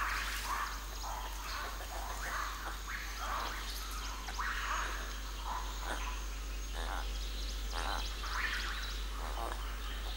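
Forest animal calls: short chirping calls, many of them falling in pitch, come every second or so over a steady thin high-pitched tone and faint ticking.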